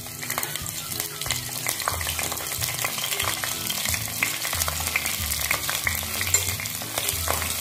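Whole green chillies frying in hot oil in a stainless steel pot, with steady, dense sizzling and crackling as a metal spoon stirs them.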